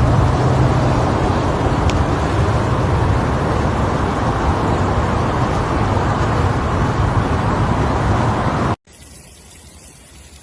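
Loud, steady rushing noise with a low hum beneath it, typical of outdoor storm or flood field audio; it cuts off abruptly near the end, leaving only a faint hiss.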